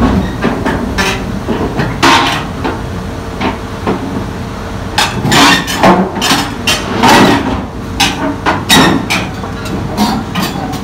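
Excavator's diesel engine running steadily, with repeated loud metallic clanks and knocks, most of them and the loudest from about halfway through.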